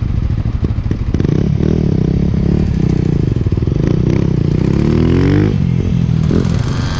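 Dirt bike engine running close by, revving up as the bike pulls away: its pitch climbs for a couple of seconds and drops off sharply about five and a half seconds in.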